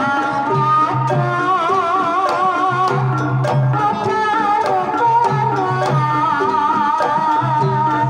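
Live Javanese gamelan playing a Banyumasan tayub gending: a sinden's voice singing an ornamented, wavering melody over kendang hand-drum strokes, metallophones and deep gong tones.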